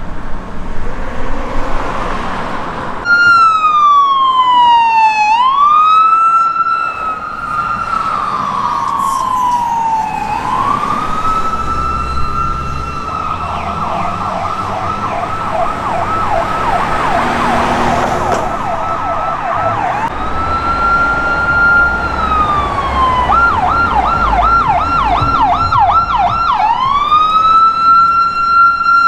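Electronic siren of a California Highway Patrol Ford Police Interceptor Utility SUV, running Code 3. It starts suddenly about three seconds in, after a few seconds of vehicle noise, and switches between a slow wail that rises and falls and a fast yelp, twice. Engine and road noise run beneath it.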